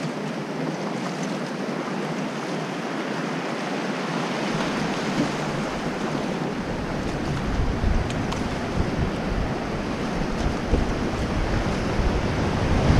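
White-water river rapids rushing around a raft, with wind buffeting the microphone as a low rumble that comes in partway through and grows louder.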